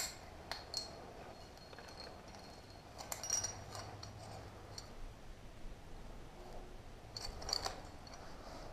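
Climbing gear (carabiners and cams on a harness) clinking in short, sparse clusters, with faint scuffing, as a climber squeezes up through a narrow rock chimney.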